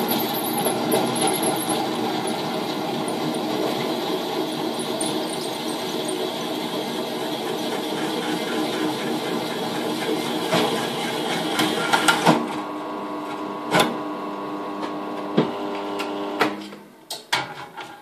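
Bench drill press running a 19 mm hole saw through a metal panel: a steady motor hum under a grinding cutting noise. About twelve seconds in the cutting noise ends as the saw breaks through. The press runs on with a cleaner hum and a few sharp knocks, then stops, followed by clattering near the end.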